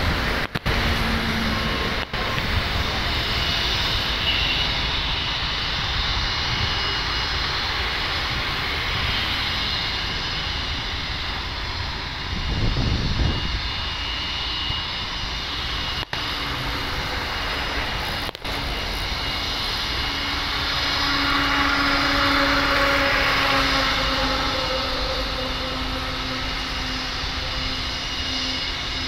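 Distant passenger airliner's engines running on the runway: a continuous rumble and rush with a steady hum, growing louder about twenty seconds in.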